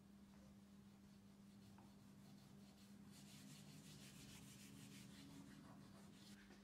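Fingertips rubbing quickly back and forth across a painted wooden door frame: a faint run of rapid scratchy strokes that starts about three seconds in and stops shortly before the end, over a steady low hum.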